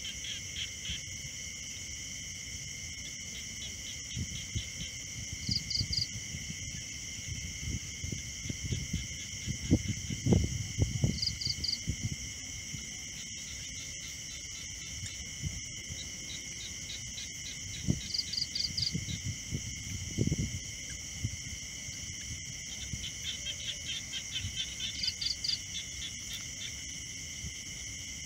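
Steady night chorus of crickets and other insects, with a short high chirp of three or four pulses repeating every six or seven seconds. Low scuffling and knocks come and go, loudest near the middle, from mice scrambling in the grain and onto the rim of the plastic bucket trap.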